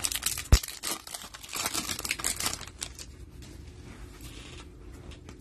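Foil trading-card pack being torn open, the wrapper crinkling and crackling, with one sharp tap about half a second in. The crinkling dies down after about three seconds to quieter handling of the cards.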